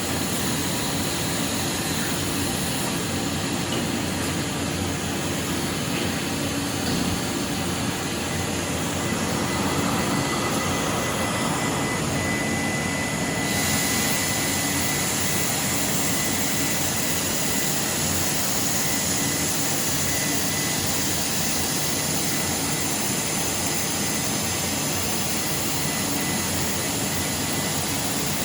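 Five-axis CNC grinding machine running, a steady dense hiss of motors and grinding. A thin high whine comes in about ten seconds in and holds, and the upper hiss brightens a few seconds later.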